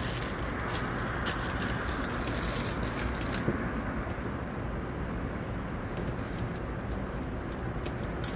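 Packaging crinkling and rustling as small chrome mounting hardware is handled and taken out, stopping about three and a half seconds in; a steady low background noise goes on under it.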